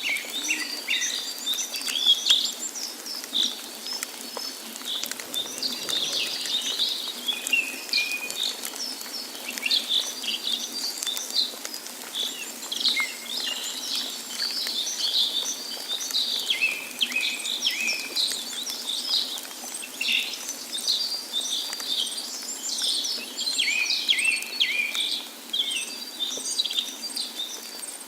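Many birds chirping and calling over one another without a break, in a busy chorus of short, high calls, over a faint steady rush of falling water.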